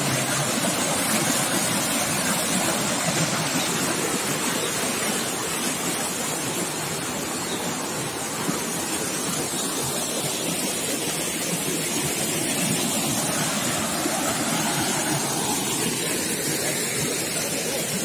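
Small mountain stream cascading over rocks: a steady rush of white water.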